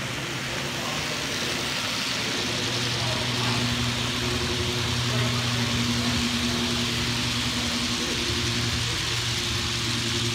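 Model freight train led by a CSX diesel locomotive rolling past on the track: a steady rush of wheels on rails with a low, even engine hum that swells a few seconds in and eases near the end.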